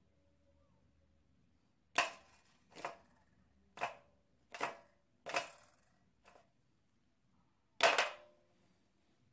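Small hard plastic toys knocked and set down on a plastic tray: seven sharp clacks spread over about six seconds, the last the loudest.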